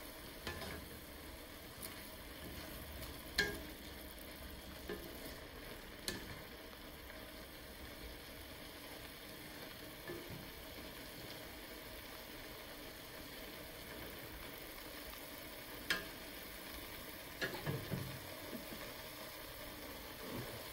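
Purple cabbage and mushrooms sizzling quietly and steadily in a stainless steel sauté pan. A wooden spatula stirring them knocks against the pan a few times, with a short run of knocks near the end.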